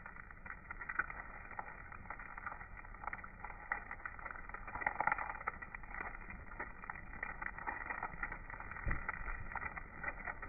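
Eggs frying in a black steel pan, sizzling steadily with frequent small crackles and pops of spattering fat.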